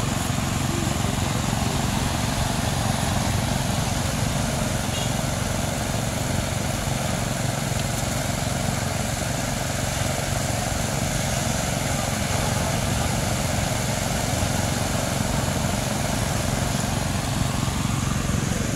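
Steady outdoor ambience at a city beach: a continuous low rumble under an even hiss, with no distinct events standing out.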